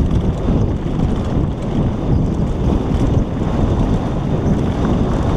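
Loud, steady wind buffeting on a helmet-mounted camera's microphone during a mountain-bike ride down a rocky dirt track.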